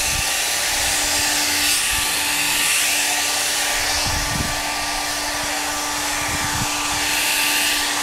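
Electric heat gun running steadily, blowing hot air onto a freshly painted motorcycle fuel tank: a constant whir with a steady hum under it, its hiss brightening and dulling a little as the gun is swept across the tank.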